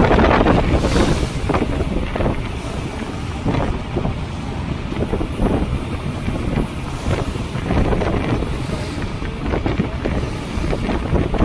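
Wind buffeting the microphone on a moving boat, with water rushing and slapping along the hull beneath it. The buffeting is heaviest in the first second or so, then settles into an uneven rumble.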